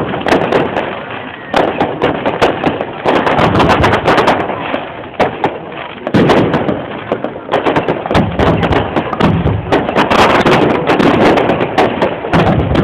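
Fireworks display: aerial shells bursting overhead, with many sharp bangs and pops following one another in quick succession throughout.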